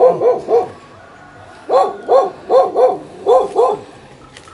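A dog barking in quick runs: three barks at the start, then after a pause of about a second a run of about six more.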